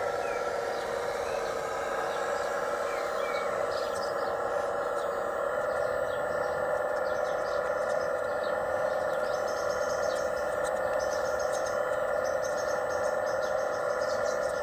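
Hydraulic pump of a radio-controlled model excavator running steadily while the boom and bucket move, getting a little louder about five seconds in as the arm lifts. Birds chirp in the background from about four seconds in.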